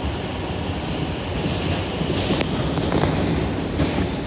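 Steady running noise inside an R142 subway car in motion: a constant rumble and rush from the wheels and rails, with a couple of short sharp clicks past the halfway point.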